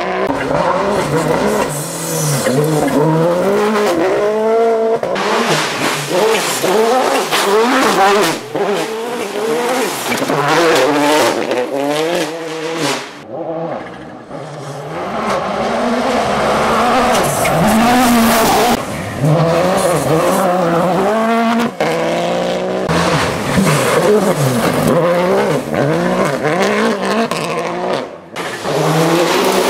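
Toyota Yaris WRC rally car's turbocharged 1.6-litre four-cylinder engine revving hard and changing gear as the car is driven flat out on gravel, its pitch repeatedly rising and dropping, with the tyres throwing gravel. The sound dips briefly about halfway through, then picks up again.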